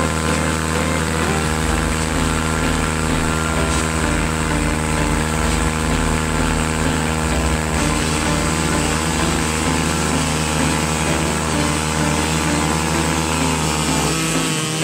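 Engine of a Yamaha YFZ quad with a swapped-in Kawasaki Z650 engine held at high revs at a steady, unchanging pitch during a burnout, rear tyres spinning on the road.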